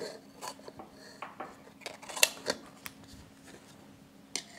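Scissors snipping through the leaves that line a metal pot, a run of irregular cuts. The sharpest snip comes about two seconds in.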